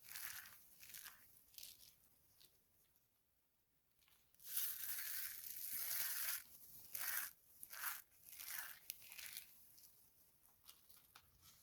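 Dry soap being crushed and crumbled: bursts of crisp crunching and crackling, with a lull of over a second before a longer crunch about four and a half seconds in, then a few shorter crunches that taper off.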